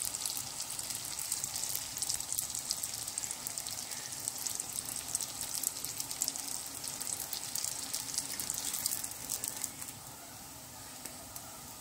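Sfenj dough ring deep-frying in hot oil in a frying pan: a steady sizzle and crackle of bubbling oil, easing off about ten seconds in.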